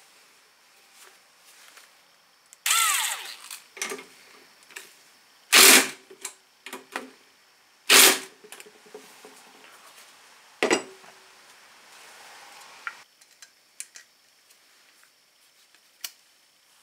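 Cordless power driver run in several short bursts as it drives the bolts of a diesel fuel filter bracket. The loudest two runs come a little past a third and about halfway through, with small knocks of tool and metal parts between runs.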